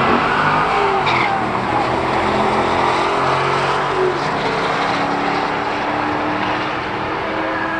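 Two cars drag racing from the launch: a red Corvette's V8 and a white sedan accelerating hard down the strip. Their engine notes climb and drop back through the gear changes, fading a little near the end as the cars pull away.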